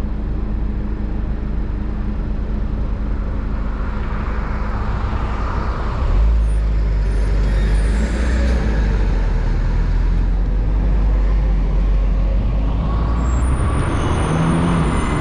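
Honda Civic Type R FL5 driving, its turbocharged four-cylinder engine and road noise making a steady low rumble that grows louder about six seconds in.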